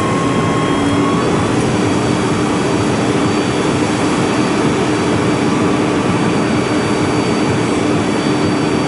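Crane's engine running steadily while the crane holds a lifted load in the air, a constant loud drone with a steady low hum.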